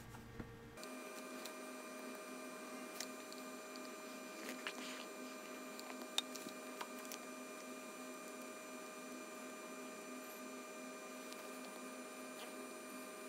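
Faint steady electrical hum made of several even tones, one low tone pulsing slightly, with a few faint scattered clicks. The deep low end drops out abruptly under a second in, as the audio is sped up.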